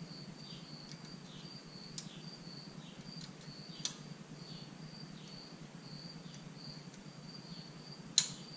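A cricket chirping steadily, about twice a second, with a few sharp metal clicks, the loudest near the end, as a wire snap ring is worked back into its groove on a 1994 Ford F-150's manual locking hub.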